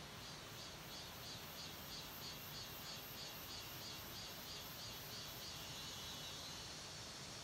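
An insect chirping in a regular high-pitched rhythm, about three chirps a second, that stops about six seconds in. A faint steady hiss lies underneath.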